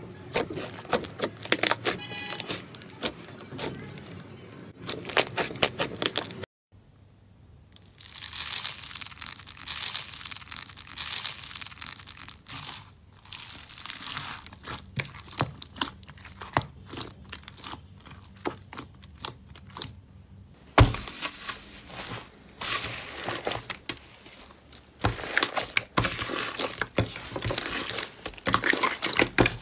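Hands kneading, squeezing and stretching slime, making dense crackling, popping and squelching clicks: first a thick butter slime, then a glossy slime packed with foam beads, then an orange clear-bowl slime. The sound cuts out briefly about six and a half seconds in and changes texture about twenty-one seconds in.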